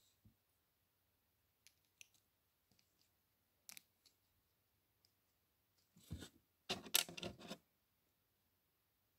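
Small plastic Lego pieces being handled and pressed together: scattered faint clicks, then a louder cluster of clicking and rattling about six to seven and a half seconds in.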